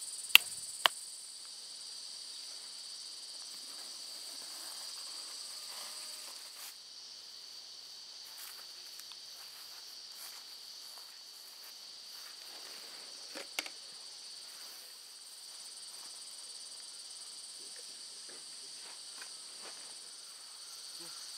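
A steady, high insect chorus drones on without a break. A few sharp knocks come in the first second, and one more comes about 13 seconds in.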